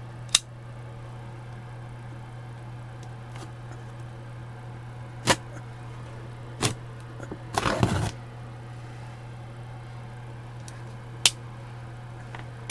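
Cardboard box being handled and opened: a few sharp clicks and knocks spread out, with a short scraping rip a little before the 8-second mark, over a steady low hum.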